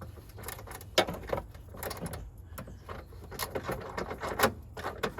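Irregular metallic clinking and scraping from rusty battery bolts being handled and cleaned, with two sharper clinks about a second in and near the end.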